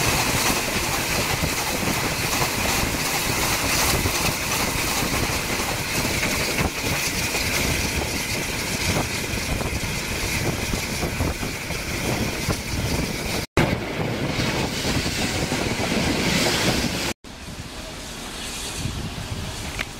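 Train noise on a heritage railway: a steady, dense noise with a faint hiss band above it. It cuts off abruptly about two-thirds of the way through, resumes, then cuts again and continues quieter.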